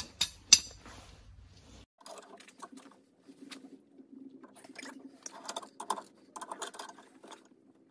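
A socket wrench working the seized, rusted lower shock-absorber mount of a 1965 VW Beetle: irregular clusters of sharp metal clicks and clanks, the loudest a single sharp clank about half a second in.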